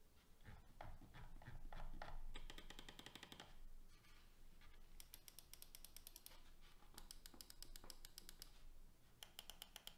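Gaming mouse clicking in quick, evenly spaced runs, several bursts with short pauses between, after a few soft handling knocks at the start.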